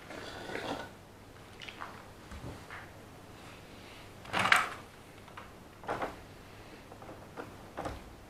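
Model train locomotive and coach being handled by hand on the layout track: a few scattered plastic knocks and clicks, the loudest about four and a half seconds in.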